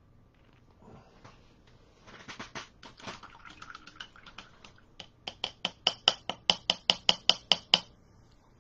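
A few scattered small clicks, then an even run of sharp, slightly ringing clicks or clinks, about five a second, lasting a little under three seconds.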